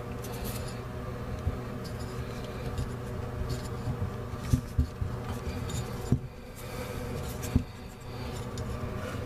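Water running from a newly installed bathroom sink faucet, hot and cold both turned on to test the supply connections for leaks. A few light knocks and clicks sound over the steady running water, which dips briefly about six seconds in.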